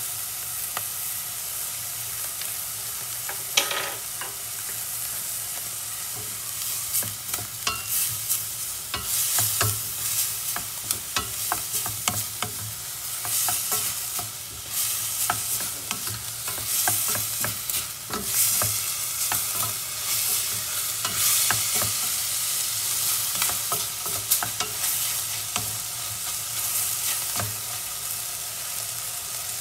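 Ground pork sizzling in oil in a stainless steel pot, a steady frying hiss. From several seconds in, a wooden spoon stirs it, scraping and tapping irregularly against the pot.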